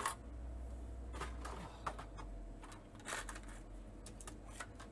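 Scattered light clicks and taps of small objects being handled on a workbench, including a clear plastic parts box and a small USB power meter, over a faint steady low hum.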